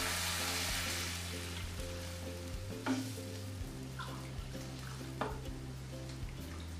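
Sizzling in a hot pan of sautéed spices fading over the first second or so as water is added, then a wooden spatula stirring and knocking against the pan a few times. Background music with steady low notes runs underneath.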